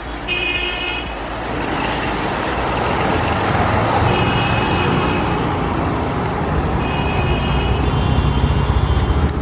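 Road traffic heard from a moving vehicle on a busy road: a steady rumble of engines and tyre noise, with high horn tones sounding three times, about a second in, around four seconds and near the end.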